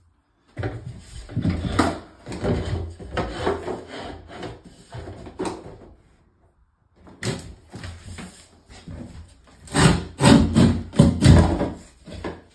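Guillotine laminate cutter and a laminate floor board being handled: a run of knocks and clunks as the board is set under the blade, then after a short pause a second run, heaviest about ten to eleven seconds in, as the handle is pulled down and the blade cuts through the board.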